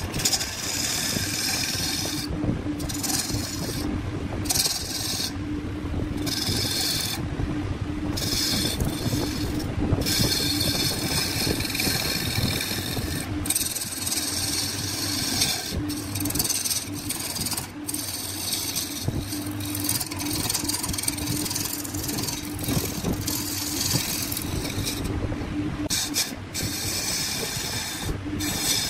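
Wood lathe running with a steady hum while a carbide-tipped turning tool cuts a spinning wood blank, giving a scraping cutting noise. The cutting noise breaks off for short moments several times, more often in the first half.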